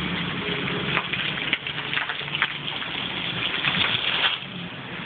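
Ford Crown Victoria idling right after a burnout, with a loud steady hiss and crackle over the low engine hum; the hiss falls away about four seconds in.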